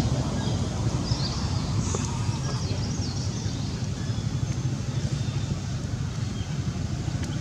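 A motor engine running steadily nearby, a low rumble with a fast, even pulse. A few faint high chirping calls sound over it about two to three seconds in.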